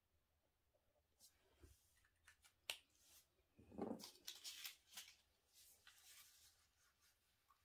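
Faint rustling and scattered light clicks of hands handling small objects on a work table, the loudest a short rustle about halfway through.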